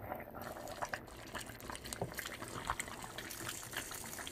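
Pot of spinach soup with chicken pieces boiling, bubbling with many small, irregular pops.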